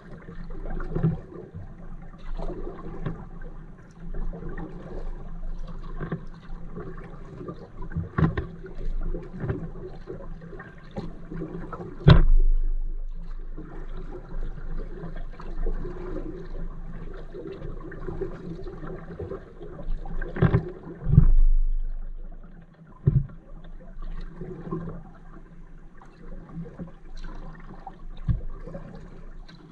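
Kayak paddle strokes through calm water, with water gurgling and dripping off the blades, and occasional sharp knocks. The loudest knocks come about twelve seconds in and again around twenty-one seconds.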